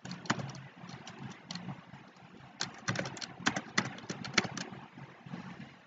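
Typing on a computer keyboard: a few separate keystrokes, then a quick run of key clicks about two and a half seconds in, over a faint low hum.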